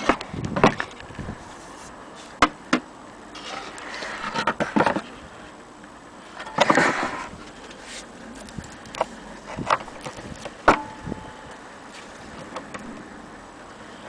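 Handling noise: scattered sharp clicks and knocks with two longer bursts of rustling. One knock past the middle leaves a brief ringing tone.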